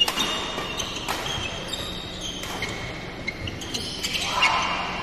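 Badminton rally: rackets striking the shuttlecock in sharp cracks, the loudest right at the start and another about a second later, with players' shoes squeaking on the court floor.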